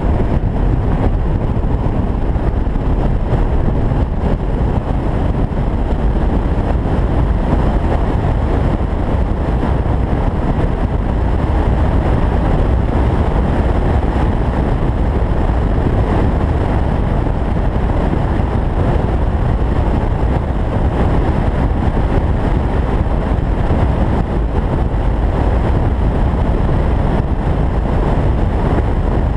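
Steady wind rush buffeting the microphone of an open-top convertible cruising at highway speed, mixed with engine and tyre noise.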